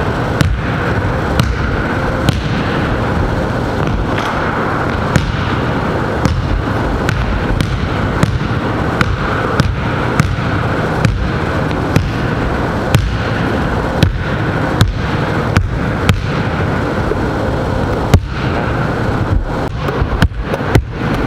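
Basketball bouncing on a hard court: sharp thuds about once a second, coming closer together near the end, over a steady loud noisy background.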